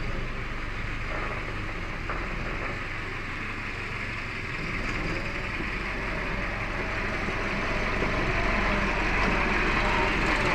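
Farm tractor's diesel engine running steadily while it pulls a laser land leveler through loose soil, growing louder toward the end.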